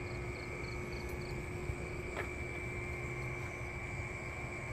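Steady night-field ambience: a continuous high-pitched insect drone over a low rumble of wind and handling on the phone's microphone, with one sharp click about two seconds in.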